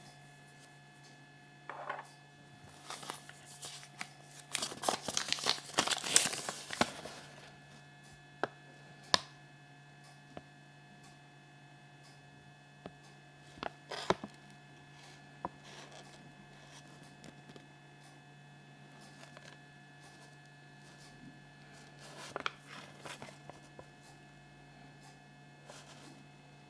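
A foil wrapper crinkling and tearing, in a dense burst from about three to seven seconds in and briefly again near the end, with a few sharp clicks in between, over a steady low mains hum.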